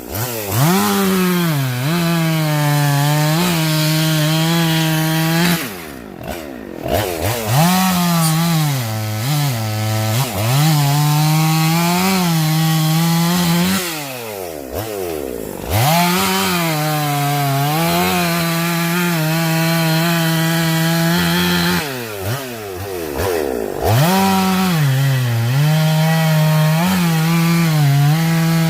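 Husqvarna two-stroke chainsaw running at full throttle and cutting wood, its pitch sagging and recovering as the chain bites. Three times, about six, fourteen and twenty-two seconds in, the throttle is let off and the engine drops toward idle, then revs straight back up.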